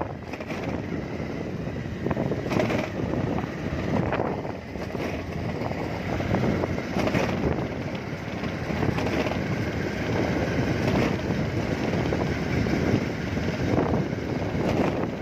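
Wind buffeting the microphone on a moving motorbike, rushing and gusting unevenly, with the ride's vehicle noise underneath.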